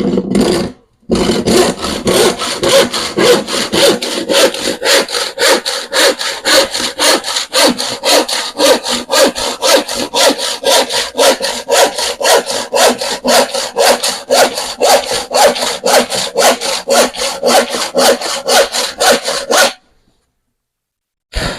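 Hand saw cutting plywood, with fast, even back-and-forth strokes at about three a second. The sawing starts about a second in and stops just before the end.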